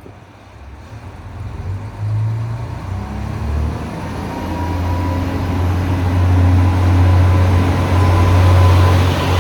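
Kashima Rinkai Railway 8000-series diesel railcar pulling away from a stop. The engine throttles up in a few steps over the first few seconds, then settles into a steady low drone that grows louder as the railcar gathers speed, with a faint rising whine above it.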